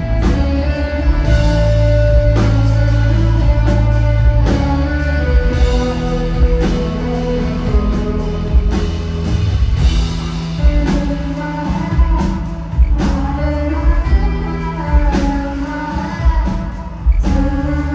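Rock band playing live: electric guitars, bass and drums, loud and continuous.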